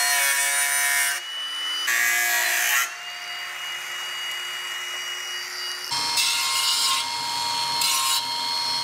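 Angle grinder with a thin cut-off disc cutting through a sheet-steel bracket in two loud passes, then running on with a steady whine. About six seconds in, it gives way to a belt grinder's contact wheel grinding the edge of the steel, a steady rasping with a constant tone.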